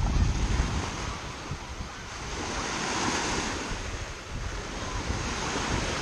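Small Baltic Sea waves breaking and washing up a sandy shore, with a wash swelling and fading about halfway through. Wind buffets the microphone, most heavily in the first second.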